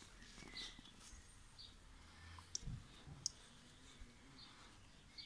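Faint scratching and clicking of an Irish Wolfhound puppy digging in loose soil with its paws, with a couple of sharper clicks about two and a half and three seconds in.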